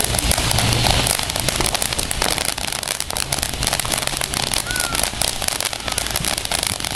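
Phantom Power Surge ground fountain firework spraying sparks: a continuous hiss packed with dense, rapid crackling.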